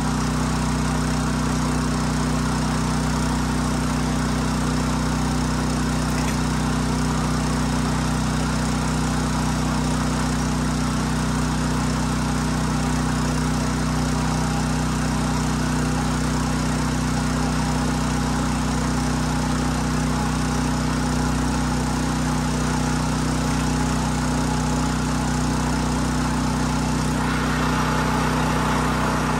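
Rail bike travelling along the track, giving a steady, unbroken mechanical drone.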